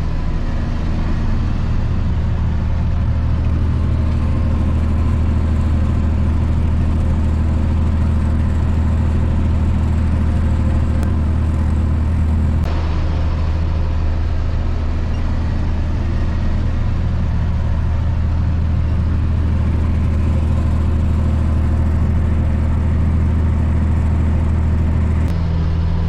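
Tractor engine running steadily under load while pulling a bush hog rotary mower through tall weeds: a steady low drone that shifts slightly about halfway through and again near the end.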